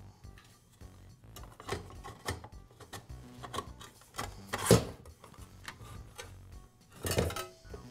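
Metal saw parts and hand tools being handled during disassembly: scattered light clicks and rubs, a sharper metal knock just before the midpoint, and a few more knocks near the end.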